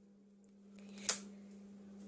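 A single sharp click about a second in from the homemade paper-roll rubber-band shotgun, over a steady low hum.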